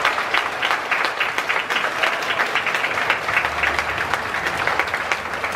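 A stadium crowd of baseball fans clapping and applauding together, a dense, steady patter of many hands.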